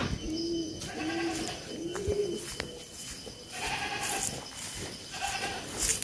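Pigeons cooing: three short, low coos in the first two seconds, followed by two higher calls with several overtones, about four and five seconds in.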